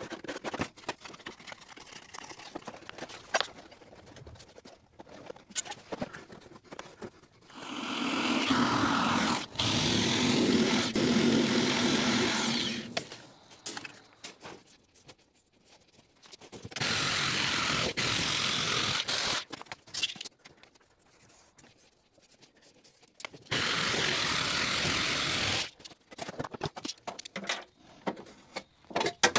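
Power tool cutting sheet steel, run in three steady bursts of a few seconds each, with clicks and knocks from handling between them.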